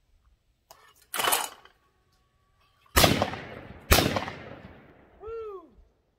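Two shotgun shots about a second apart from a Tristar Trinity 16-gauge over-and-under, each followed by a long fading echo; the second shot breaks the clay. A brief burst of noise comes about a second before the shots, and a dog gives a short falling yelp after them.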